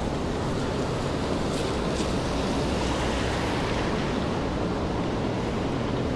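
Steady hiss of rain falling on wet city pavement, with a couple of faint sharper drip ticks about two seconds in.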